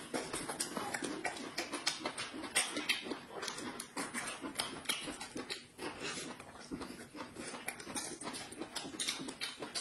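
Close-miked eating sounds from hand-peeled bamboo shoots: wet chewing, sucking and lip smacks, along with the rustle of husks being peeled. Many small irregular clicks and crackles follow one another without a break.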